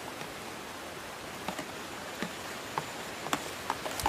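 Pot boiling over an open wood fire: a steady hiss with scattered small crackles and clicks from about a second and a half in.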